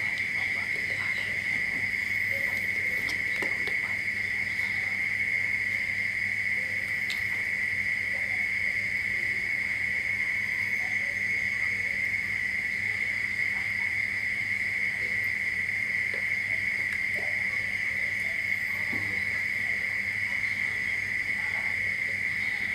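A steady high-pitched whine holding one pitch throughout over a low electrical hum, with faint, scattered bites and chewing as food is eaten.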